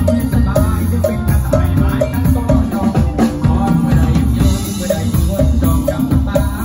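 Live mor lam band playing an instrumental passage, loud and steady, with the drum kit prominent over keyboard and bass and a short note repeating a few times a second.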